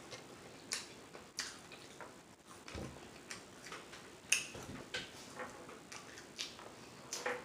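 Close-up eating sounds: open-mouthed chewing and lip smacking, with wet mouth clicks at irregular intervals, the sharpest about four seconds in.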